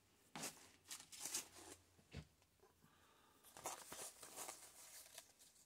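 Hands handling and pressing fabric and paper onto a junk-journal page: soft rustling and crinkling in several short bursts, with a dull bump just after two seconds in.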